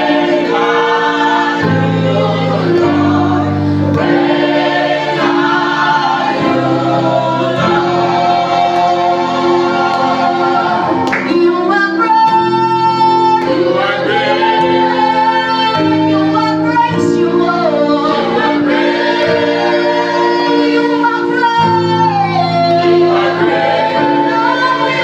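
Live gospel praise song: a group of singers with female lead voices over sustained keyboard chords and bass, the chords changing every second or two.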